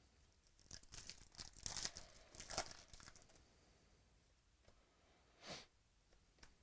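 Trading card pack wrapper being torn open and crinkled for a couple of seconds, with a short second rustle near the end.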